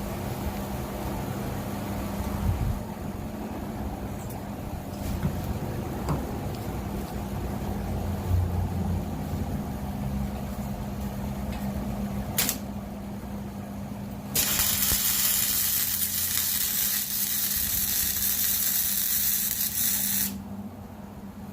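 A short spray burst about twelve seconds in, then a steady hiss of spray for about six seconds. This is an aerosol cleaner being sprayed on the exhaust to look for leak bubbles, over a steady low hum from the pickup idling.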